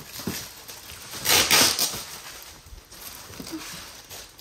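Packaging rustling as items are handled and unpacked, with one louder rustle about a second and a half in and a few small clicks.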